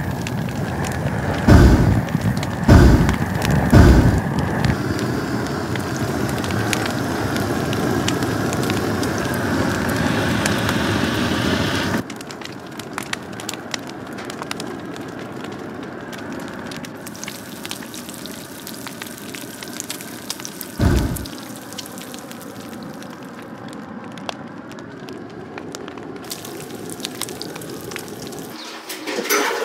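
Open flame burning with a steady rushing noise, with three low thumps in the first few seconds; about twelve seconds in the sound drops suddenly to a quieter steady hiss, with one more low thump later.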